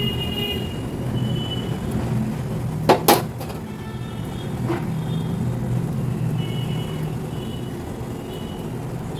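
A pot of kadha boiling on a gas stove: a steady low rumble of burner and bubbling, with two sharp knocks about three seconds in.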